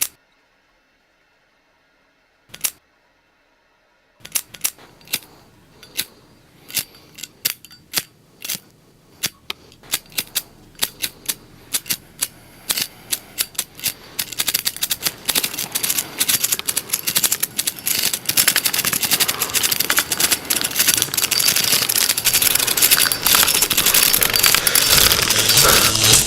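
Sharp pops or snaps, a single one at first, then scattered ones a few seconds in that come faster and faster until they run together into a loud, dense crackle that keeps growing to the end.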